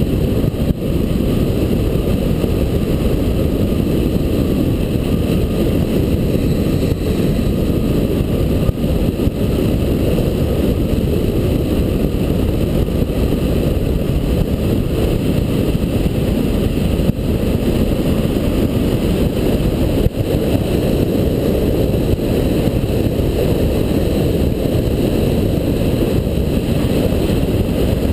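Steady, loud rush of airflow over the microphone of a camera mounted on the wing of a hang glider in flight.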